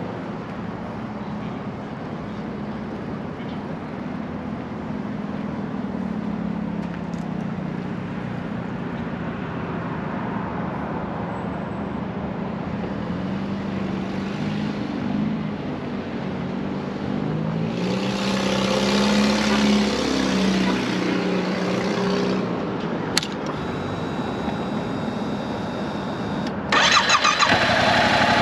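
Vehicle engines hum in the background, one passing louder with shifting pitch about two-thirds of the way through. Near the end the 2022 Yamaha R7's 689 cc CP2 parallel-twin engine starts suddenly and runs loudly.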